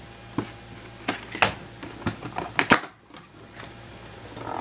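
Cardboard packaging being opened by hand: a taped seal peeling and a paperboard box flap tearing open, a run of sharp crackles and snaps over the first three seconds or so.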